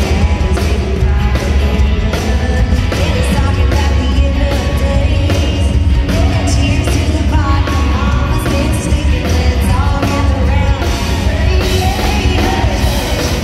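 A live country band plays loud, with a heavy bass and a steady beat, while women's voices sing over it, heard in a large hall.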